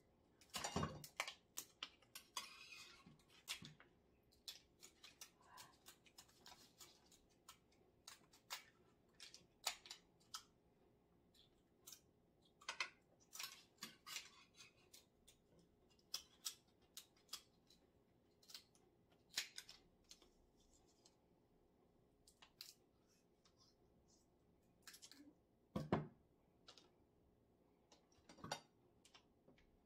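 Kitchen scissors snipping through the shells of cooked king crab legs: scattered, irregular sharp snips and cracks with quiet between them, one louder near the end.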